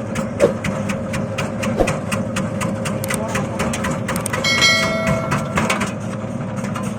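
Keripik chip-slicing machine running while cutting, a steady motor drone with rapid, even ticking of about six a second and a few louder knocks.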